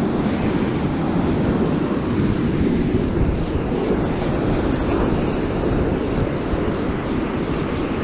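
Steady rushing noise of ocean surf with wind buffeting the microphone.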